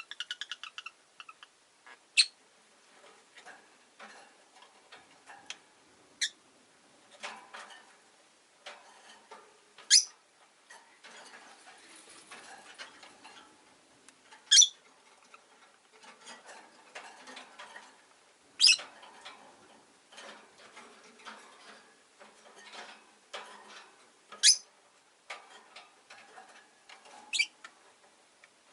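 Rosy-faced lovebirds chirping: a quick run of chirps at the start, then single short, sharp, high-pitched calls about every four seconds. Softer clicking and rustling fill the gaps between calls.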